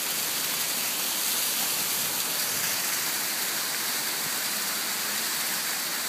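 Waterfall spilling down a rock cliff onto the rocks below: a steady rushing hiss of falling water.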